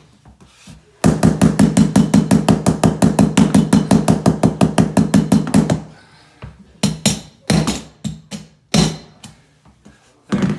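A fast, even run of hammer taps, about nine a second for some five seconds, then a few single knocks. They are knocking luxury vinyl floor planks back together to close up the joint.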